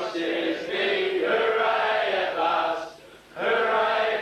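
A group of people singing together in long held notes, breaking off briefly about three seconds in before starting again.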